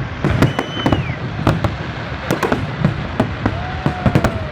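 Fireworks going off: a dense run of sharp bangs and crackles, several a second, over a low rumble. A high whistle sounds in the first second and a lower whistle near the end.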